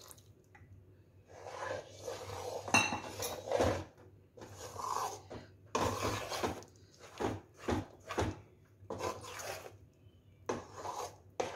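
A metal spoon stirring and scraping a thick, pasty besan-and-sugar-syrup mixture around a metal kadhai, in a run of irregular scraping strokes with light clinks against the pan.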